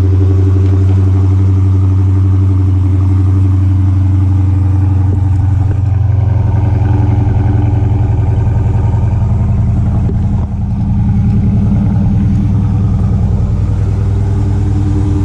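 Dodge Charger Daytona 392's 6.4-litre HEMI V8 idling steadily after a cold start.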